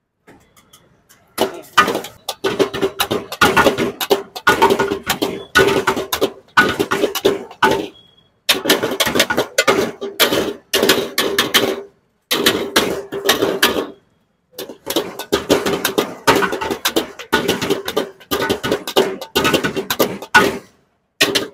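Steel ladle clattering and scraping rapidly against a large steel wok during stir-frying, with a steady ringing note underneath. The clatter comes in several runs broken by short pauses.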